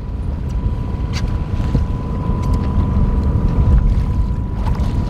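Wind buffeting the microphone, a loud, steady low rumble, with small splashes of lake water as a trout is let back over the side of the boat.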